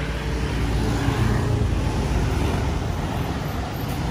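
Street traffic noise: motor vehicles running and passing as a steady rumble.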